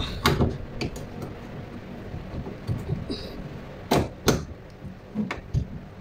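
Hard plastic knocks and clicks from a washing machine's drain-valve fitting being pushed and twisted by hand to seat it. It won't go in because it is upside down. The loudest are two knocks close together about four seconds in.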